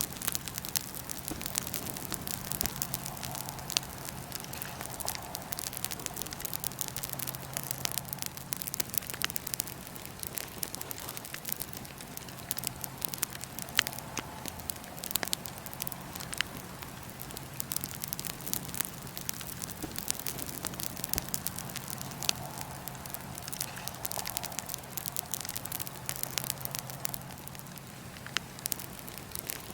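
Wood fire in a fire pit crackling steadily, a dense run of small snaps with a few louder pops scattered through.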